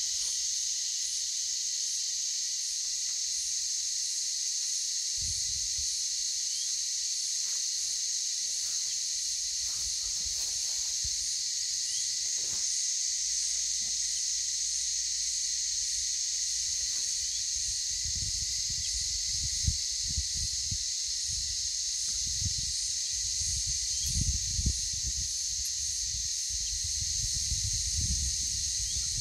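A steady, high-pitched drone of insects in surrounding bushland, with a faint regular pulsing in it. In the second half, low thumps, rumbles and a few short knocks come in from work on the loader's tank panel.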